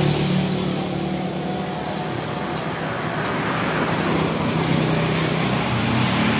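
Road traffic: motor vehicles passing by with a steady engine and tyre hum, swelling again as one comes closer in the second half.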